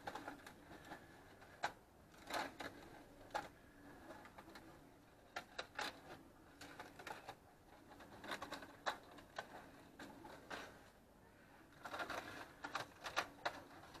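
Aluminium foil crinkling and crackling in irregular bursts as it is peeled back by hand from a covered roasting pan.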